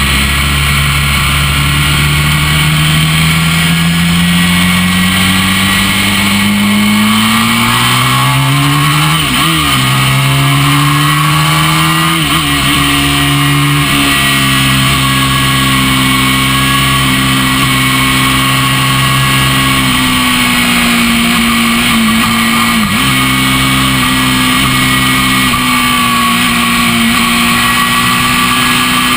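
Honda NC30 (VFR400R) race bike's V4 engine running hard on track. The revs climb steadily for the first third, drop quickly and climb again around ten seconds in at gear changes, then hold high with a couple of brief dips later on, over a steady rush of wind noise.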